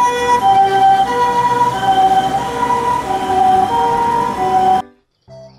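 Japanese ambulance's two-tone 'pee-poh' siren, alternating evenly between a higher and a lower note as the ambulance drives past. It cuts off suddenly near the end.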